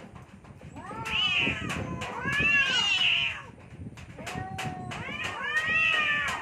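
Domestic cats yowling at each other in a territorial standoff: long, drawn-out wails that rise and fall in pitch, in two stretches with a short lull between, sometimes overlapping.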